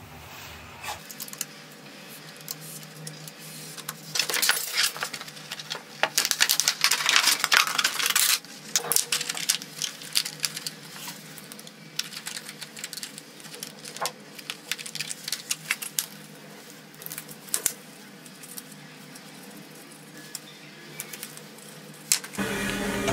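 A stiff clear plastic sheet being handled and bent on a metal workbench: crackling and rustling with scattered sharp clicks and taps, the densest stretch about four to eight seconds in. Music comes in just before the end.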